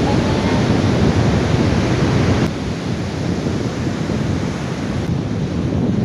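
Strong wind buffeting the microphone, a loud low rumbling noise with surf mixed in, easing slightly about two and a half seconds in.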